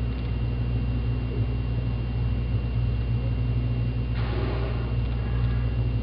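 A boat's engine running steadily, a constant low hum. A short noisy rush about four seconds in.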